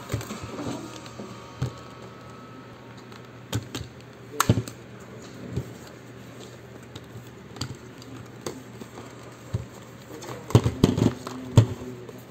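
Plastic parts of a Xiaomi Mi G10 stick vacuum's dust bin and filter set being handled and unclipped: scattered clicks and knocks, with a quick cluster of several near the end.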